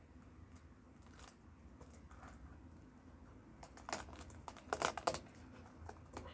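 Crinkling and rustling of materials being handled and rummaged through, with a few faint clicks, then a louder flurry of crinkles about four to five seconds in.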